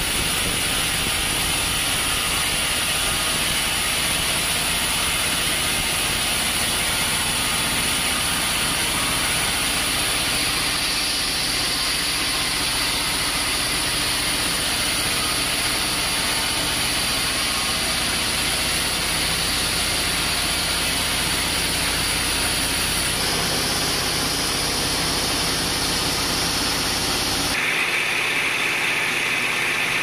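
Band sawmill running, its blade cutting through a large teak log: steady loud machine noise with a high whine. The sound shifts abruptly twice near the end.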